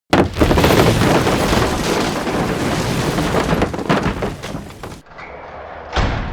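Cinematic sound effect: a loud, dense burst of rapid cracks and booms that starts abruptly and cuts off suddenly about five seconds in, followed by a single boom that fades away.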